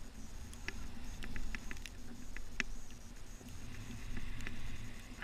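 Snowboard sliding through snow, heard from a pole-mounted action camera: a steady low rumble, with a quick run of light clicks from about half a second to three seconds in and one sharp knock at the very end.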